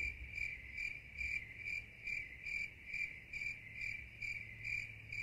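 Crickets chirping in an even rhythm, about two chirps a second. It is the comic 'crickets' sound effect for waiting with nothing happening, starting abruptly at an edit.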